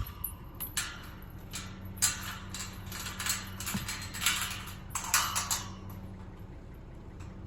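Footsteps and rustling through dry brush and grass: a run of irregular scuffing steps that stops a little past halfway, over a steady low hum.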